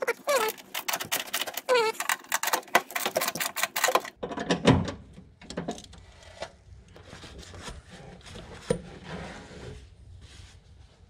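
Ratchet wrench clicking rapidly as a bolt on the AC accumulator bracket is turned, for about four seconds, then quieter handling sounds with a couple of knocks.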